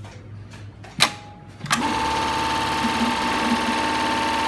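GDB 9820 industrial eyelet buttonhole sewing machine: one sharp click about a second in, then the machine starts and runs its stitching cycle evenly, with a steady high whine over the stitching.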